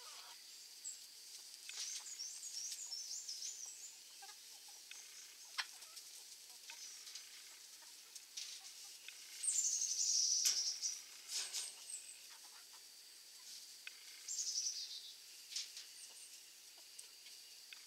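Chickens foraging in grass: scattered small clicks of pecking and scratching, with high-pitched bird chirps and trills. The loudest is a falling chirp about ten seconds in, and another comes a few seconds later, over a faint steady high tone.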